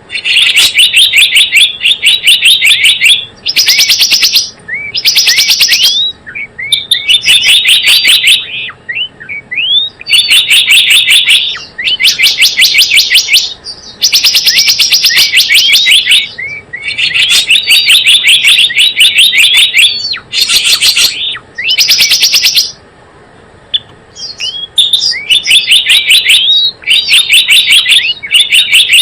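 Gelatik bloong bird lure call: loud bursts of rapid, high repeated chirps, each burst lasting a second or two, separated by short gaps with scattered single chirps.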